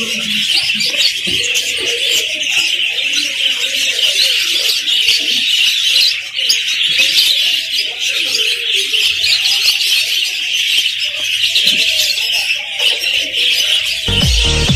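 Dense, unbroken chorus of many caged birds chirping and twittering, lovebirds among them. Near the end, electronic music with a heavy beat comes in over it.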